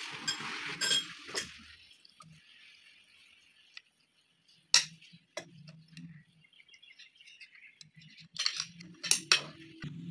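Metal spoons clinking against glass bowls and a plastic tub as diced melon is scooped and served. A few sharp clinks about halfway through and a quick cluster near the end, with quiet scraping and handling between.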